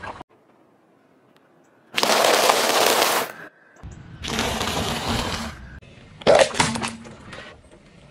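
Car tyre rolling over and crushing crunchy food on asphalt, in a few short separate clips. A dense crunching hiss comes about two seconds in, then tyre rumble with crackling, then sharp cracking crunches a little past six seconds.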